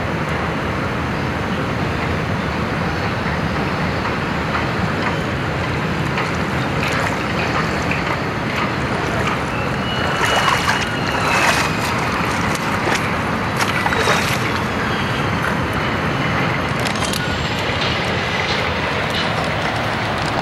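Feet splashing through shallow seawater as a person wades across a rocky tide pool, in a cluster of splashes between about ten and fourteen seconds in, over a steady rushing noise.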